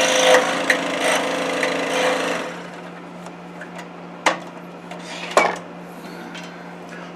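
Scroll saw with a number 7 Pegas blade cutting through 1-inch hard maple, the rasping cut dying away about two and a half seconds in. After that comes a low steady hum with a few sharp clicks and knocks.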